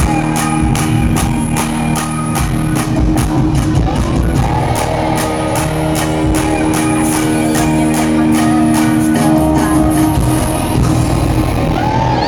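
Loud live concert music from a PA: a dance-pop/R&B track with a fast steady beat and held synth notes. The beat stops about a second before the end, and the crowd starts cheering and whooping.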